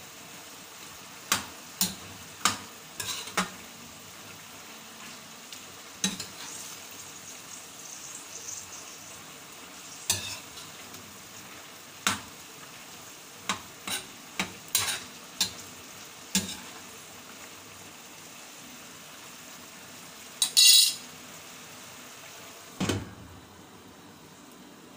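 A metal spatula scraping and knocking against a frying pan as chicken gizzards and liver are stirred in a sizzling sauce, a dozen or so sharp clicks spread through. Near the end comes a louder clatter, then a thud as a glass lid is set on the pan, and the sizzle goes quieter.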